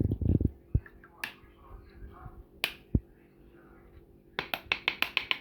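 Kitchenware being handled: a few dull knocks, scattered sharp clicks, then a quick run of about eight sharp clicks near the end.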